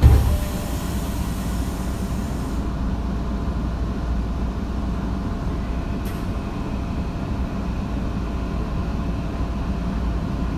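Tokyo Metro Marunouchi Line 2000-series train standing at a platform, its onboard equipment giving a steady low rumble. A thump comes right at the start, and a high hiss cuts off about two and a half seconds in.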